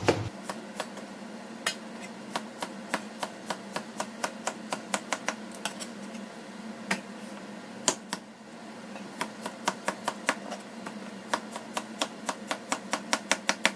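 Kitchen knife slicing cucumber on a cutting board: a steady run of sharp chops, about three a second, with a short lull about seven seconds in and a quicker run near the end.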